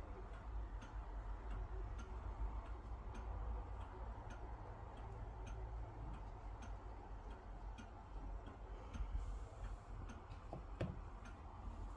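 Steady, evenly spaced ticking over a low rumble, with a brief soft knock near the end.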